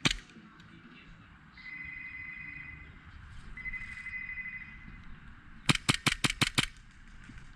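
Airsoft guns firing: a single sharp shot right at the start, then a rapid burst of about seven shots in under a second near the end. Between them come two steady high-pitched tones of about a second each.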